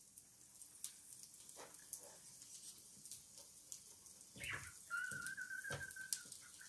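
Faint scattered taps and scrapes of a wooden spatula on the plate of an electric grill while a fried egg is turned. Near the end a single whistled tone is held for about a second, rising slightly.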